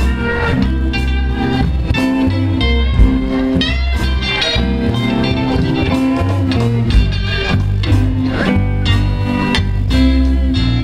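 Live blues band in an instrumental break: an electric guitar solo with gliding, bending notes over a steady bass and drums.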